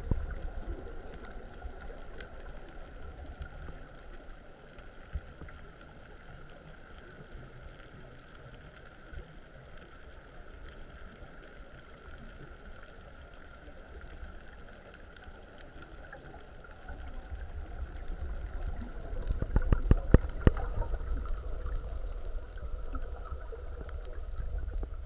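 Underwater ambience picked up by a submerged camera: a muffled low rumble and faint hiss with a thin steady hum. About two-thirds of the way in the rumble grows louder, with a cluster of sharp clicks and knocks.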